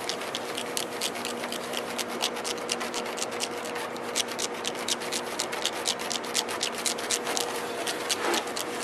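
Razor blade scraping epoxy overspray off car paint in quick short strokes, making a rapid, irregular crisp ticking, several clicks a second.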